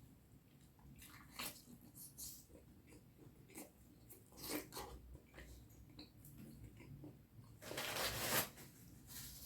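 Close-miked mouth sounds of a person eating curry and rice: chewing with scattered wet smacks and clicks, and one longer noisy sound near the end.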